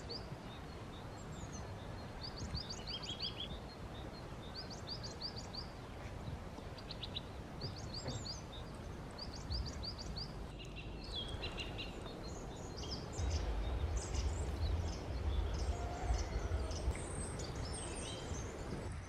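Small birds singing in the open, repeating quick series of high chirps every second or two over a steady outdoor hiss. A low rumble swells in the second half.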